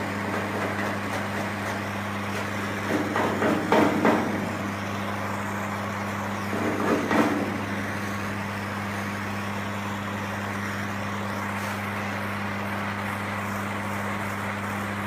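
A steady low hum with a hiss runs throughout. Two short bursts of rough rubbing come about three and seven seconds in, fitting a paddle being worked over soft body lead on a car-body seam.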